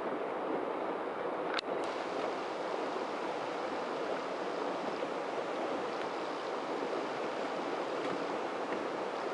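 Small river current rushing steadily through a logjam of fallen trees, an even watery hiss, with a single sharp click about a second and a half in.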